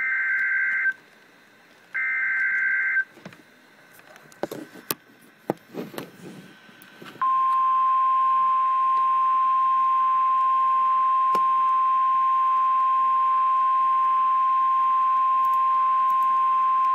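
Emergency alert data bursts: two loud, roughly one-second bursts of warbling digital tones (the SAME header that encodes the warning), then a few faint clicks and knocks. About seven seconds in, the NOAA Weather Radio warning alarm tone starts, a single steady pitch held for about ten seconds before the severe thunderstorm warning is read.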